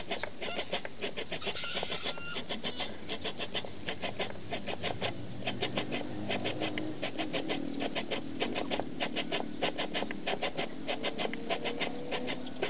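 Grated coconut squeezed by hand over a stainless steel bowl, its milk dripping and splattering into the bowl in quick, irregular taps.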